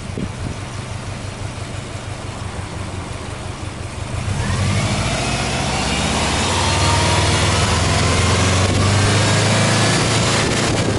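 Subaru Impreza WRX STi turbocharged flat-four (boxer) engine, stationary, idling, then free-revved about four seconds in: the revs climb over a couple of seconds, are held up, and drop back near the end.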